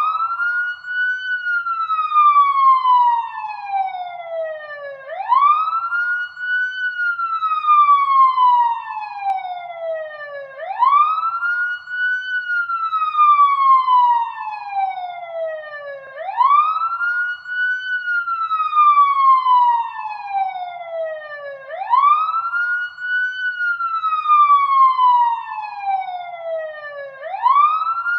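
Police car siren on a wail cycle: each tone sweeps up quickly in about a second, then slides slowly back down over about four seconds, repeating about every five and a half seconds.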